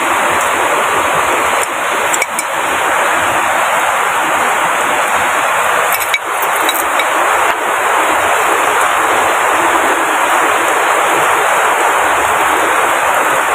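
Heavy rain falling, a steady, even hiss, with a few brief clicks.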